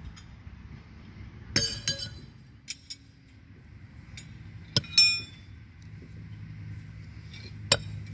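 Pitched steel horseshoes landing in a sand pit: three sharp strikes, about a second and a half in, about five seconds in and near the end, the first two ringing with a metallic clink as metal hits metal at the stake.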